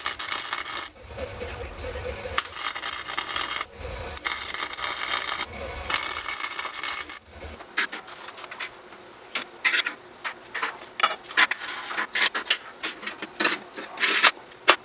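Wire-feed welder laying short tack welds on steel tubing: several bursts of crackling arc, each a second or two long with brief pauses between, over the first seven seconds or so. After that come scattered metallic clicks and clanks as the magnetic welding squares and steel parts are moved on the welding table.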